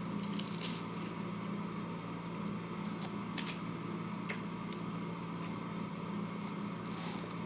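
Steady low machine hum, like a room's ventilation, with a few small clicks and mouth sounds of eating, one sharp click about four seconds in.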